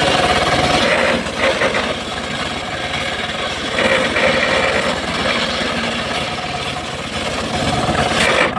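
Homemade circular saw bench running, its blade cutting lengthwise through a mahogany log, the sound rising and falling as the log is fed through.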